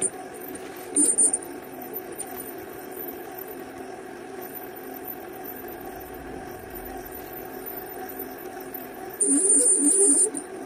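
Mill spindle running a Wohlhaupter UPA4 boring/facing head, its single-point tool circling a metal shaft to turn down a bearing journal, with a steady machine hum. Twice, briefly about a second in and for about a second near the end, a much louder harsh, hissing cutting noise rises over it.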